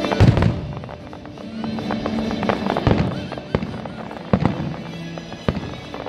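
Fireworks going off: a loud bang just after the start, then sharp bangs and crackling about every second through the rest.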